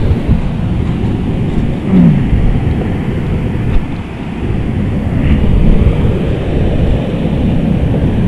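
Steady low rumble of wind and choppy surf buffeting the microphone.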